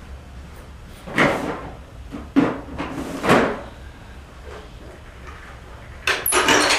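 A wheeled hospital overbed table being handled and rolled into place: a few short scraping knocks, then a louder clattering rattle of its metal frame near the end.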